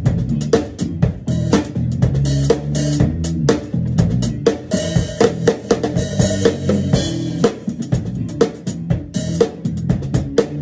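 Acoustic drum kit played in a funk groove: a steady, even rhythm of snare, bass drum and cymbal strokes, with a cymbal ringing out for a couple of seconds around the middle.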